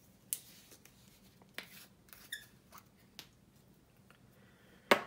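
Scattered light clicks and taps of paint jar and tools being handled on a hobby bench, with a small clink about halfway through and a sharper knock near the end.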